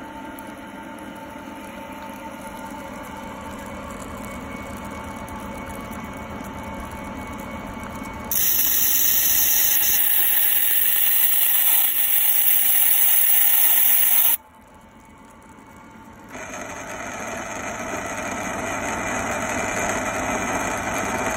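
Stone lathe running with a steady motor hum, then a cutting tool scraping the spinning stone cylinder with a loud, harsh hiss that starts about a third of the way in. The scraping breaks off suddenly a little past the middle and comes back a couple of seconds later, growing louder toward the end.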